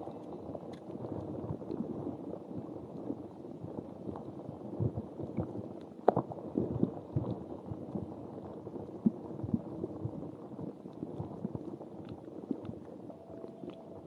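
A textured ball rubbed and brushed against the phone camera and its microphone: a dense, muffled crackling scratch with scattered sharp clicks, the loudest about six seconds in.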